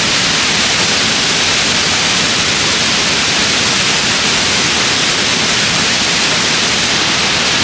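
Steady, even rushing of running water, an unbroken hiss with no other events.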